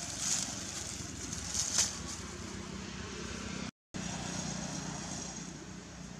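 Steady low drone of a running vehicle engine, with a few crisp crackles of dry leaves underfoot as a macaque walks over leaf litter in the first two seconds. The sound cuts out completely for a moment a little before four seconds in.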